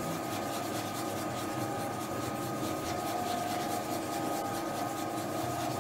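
Spiral dough mixer running steadily at a raised speed, its motor giving a steady whine while the spiral hook kneads pizza dough around the steel bowl.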